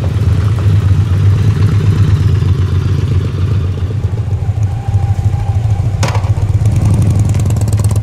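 Motorcycles riding slowly past at low speed, their engines running loudly and steadily with a strong low pitch. A sharp click sounds about six seconds in.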